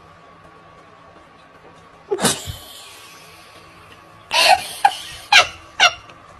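A person laughing in a run of short bursts, four about half a second apart in the second half, after one sudden loud burst about two seconds in. A faint steady hum lies underneath.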